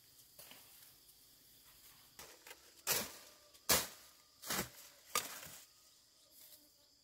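Tall grass and plant stalks rustling and snapping as they are pushed through and picked by hand: a few sharp swishing cracks, the loudest about three to four seconds in. A faint high insect drone runs underneath.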